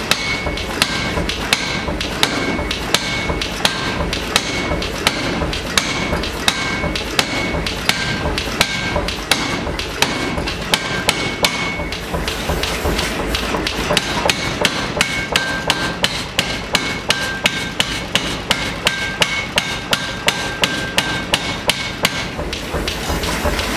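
Power hammer striking rapidly and evenly, about three blows a second, on a homemade spring-loaded forging die with a red-hot steel billet inside, as the die is tested by stamping the hot metal. The blows slacken briefly about halfway through and stop near the end.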